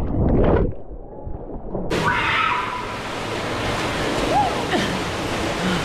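Rushing, splashing water. A loud burst of it stops abruptly less than a second in, and a steady hiss of running water starts sharply about two seconds in. Faint voices carry over it.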